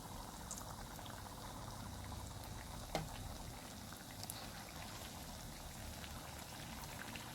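Doughnuts deep-frying in hot oil: a steady sizzle with scattered small crackles, and one sharper click about three seconds in.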